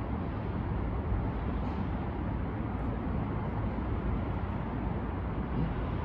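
Steady low rumble of distant city road traffic, with no distinct events.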